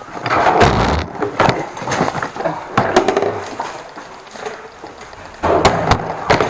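Handling noise: a run of knocks, clacks and rustling as the camera and gear are carried out through a front door, with louder clatter in the first second and again near the end.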